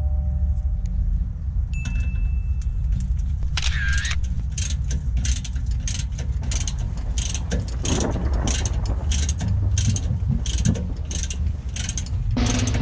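Ratchet wrench clicking in repeated short strokes, about two to three clicks a second starting a few seconds in, as the Teflon-taped plug is driven back into the rear differential housing. A steady low rumble runs underneath.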